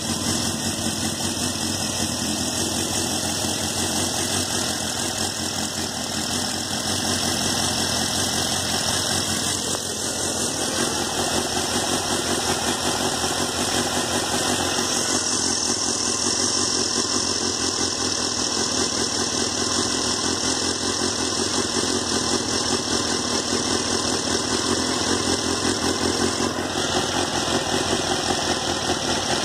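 Honda CBR600 F2's inline-four engine idling steadily while its four carburettors are being synchronised.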